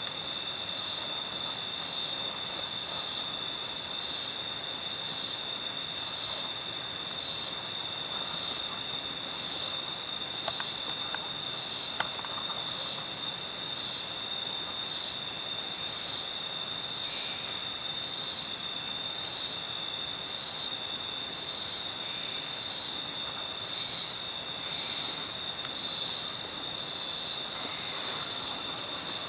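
A steady, high-pitched insect chorus: many shrill calls layered into one continuous, unbroken drone.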